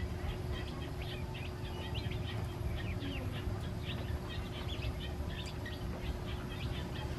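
A brood of newly hatched ducklings peeping, many short high chirps overlapping in a constant chatter, over a low steady rumble.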